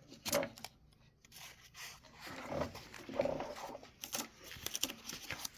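Protective packing paper and wrapping being pulled off a new lawn mower: irregular rustling, crinkling and tearing in short bursts, with a few light knocks.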